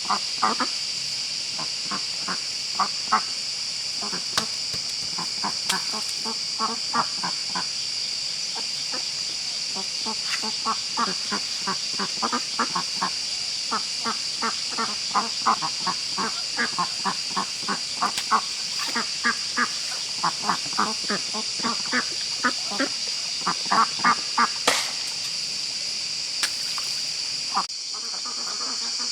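Short animal calls repeated in quick runs, over a steady high-pitched insect drone, with one sharp click about three-quarters of the way through.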